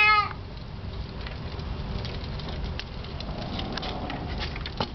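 Small children's bike with training wheels rolling over concrete: a steady low rumble with scattered small rattling ticks, and a sharp click near the end. A child's high-pitched squeal cuts off just after the start.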